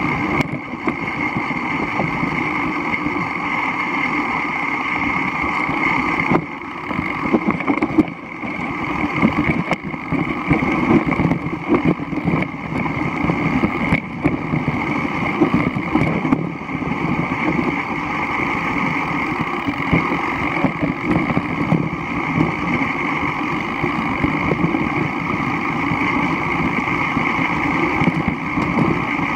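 Mountain bike riding over a rough, wet dirt track, heard through a bike-mounted action camera: a steady rumble of tyre and wind noise with frequent small knocks and rattles from the bumps. The level dips briefly about six and eight seconds in.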